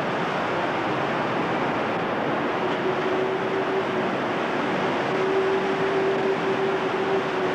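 Steady outdoor wash of wind and distant surf on a camcorder microphone. A steady motor drone joins about three seconds in and holds.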